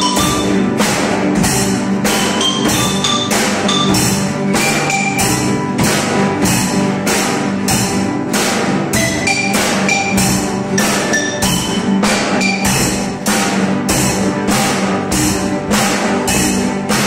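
Student ensemble of nylon-string classical guitars, marimba, conga and drum kit playing a song together, with a steady beat of about two and a half strokes a second and marimba notes over the strummed guitars.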